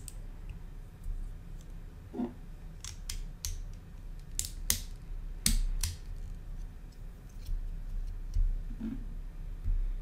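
Plastic Lego bricks being handled and pressed together, with a run of sharp clicks in the middle and a couple of soft knocks, over a steady low hum.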